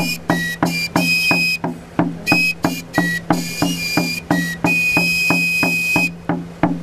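A one-handed pipe and a drum played together by one man: a shrill, whistling pipe melody of held notes over a steady drumbeat of about three to four strokes a second. The pipe stops briefly near the end while the drum keeps going.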